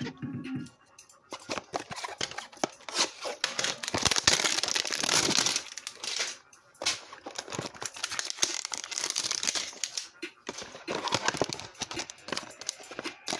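Plastic wrapping of a trading-card hanger box being torn open and crumpled, a long stretch of tearing and crinkling with a short pause a little past the middle.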